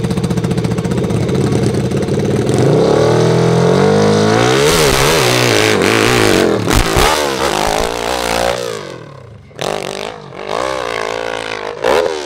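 Open-class hill climb motorcycle engine running at steady revs, then opening up about four seconds in, its revs surging up and down for several seconds with a clatter partway through. The engine then drops away to quieter, separate bursts of throttle near the end.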